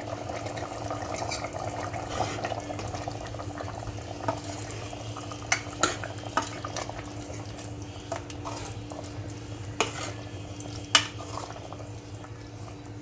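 A spoon stirring chicken gravy in a pressure cooker pot, knocking sharply against the pot now and then, the loudest knock near the end. A steady low hum runs underneath.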